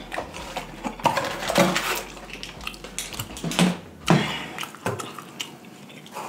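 Close-miked eating sounds at a table of snow crab legs and rice: mouth noises with scattered clicks and clatters of food and crab shell handled against a plate, the loudest a few sharp clatters about one, three and a half and four seconds in. About four seconds in comes the sound of a cardboard box being picked up.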